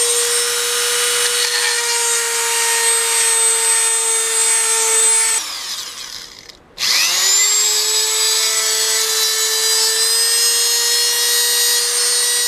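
A handheld electric rotary tool drilling a hole in a thin steel feeler-gauge blade clamped in a vise. The motor runs with a steady high whine, stops about five seconds in, then spins back up with a rising pitch a second and a half later and runs steadily again.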